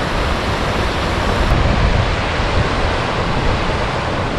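Shallow river rushing over limestone ledges and small stepped weirs: a loud, steady rush of water, with wind buffeting the microphone.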